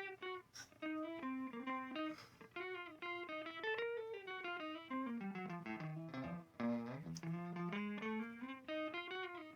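Background music: a plucked guitar picking out a melody of separate notes.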